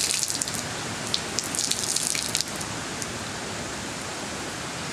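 Water splashing onto concrete from a soaked cloth being wrung out, in two spells, the first right at the start and the second about a second and a half in, over steady falling rain.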